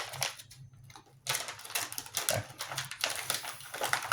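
Plastic ration packaging being handled and crinkled, a dense crackle of small clicks, with a short burst at the start and a longer stretch from just over a second in.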